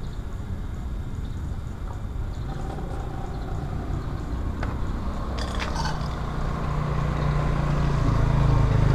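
Motorcycle engine running with a steady low hum that grows louder over the last few seconds, over a low rumble, with a few sharp clicks around the middle.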